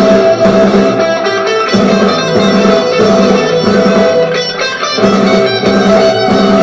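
Background music led by guitar, with electric guitar over a steady bass line.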